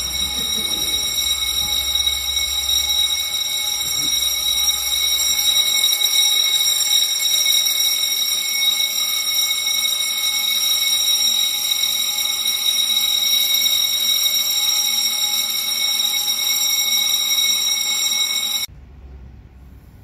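Building fire alarm sounder ringing continuously on one steady tone, set off by a smoke detector in alarm during a test. It cuts off suddenly near the end.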